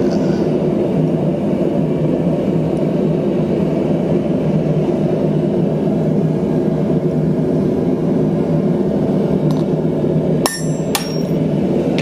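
Hammer striking a steel number stamp twice, about half a second apart near the end, each blow ringing briefly, over a loud, steady low running noise.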